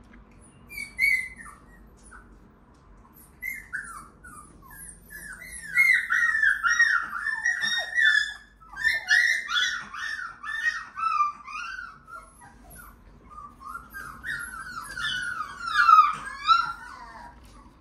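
Shiba Inu puppy whining: runs of quick, high-pitched, falling whimpers, a brief one early and then two long strings, loudest near the end.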